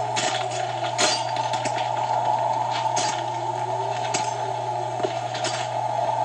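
Steady hum and hiss of an old film soundtrack, with scattered sharp clicks and light clinks every second or two.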